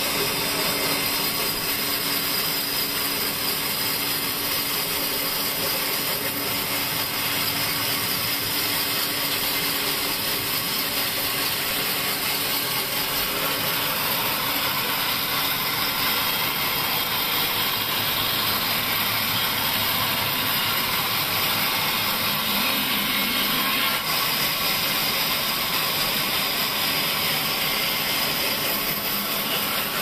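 A large vertical band saw runs steadily while a pine plank is fed through its blade and sawn lengthwise, giving a continuous even noise of the blade cutting wood.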